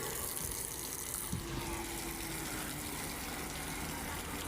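Water gushing in a steady rush, with one brief knock about a second in.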